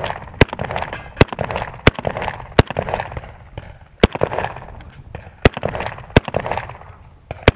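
Eight shots from a magazine-fed semi-automatic shotgun, fired singly at an uneven pace, roughly one every second, each followed by a short echo.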